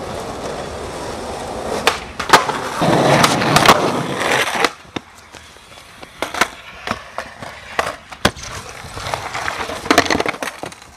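Skateboard wheels rolling over pavement, broken by sharp clacks of the board popping and landing. A loud impact comes near the end as a skater slams.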